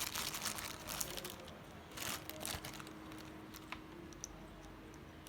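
Plastic packaging crinkling and rustling as clamp-meter accessories are handled, dense for the first second or so, then a few scattered light clicks and rustles.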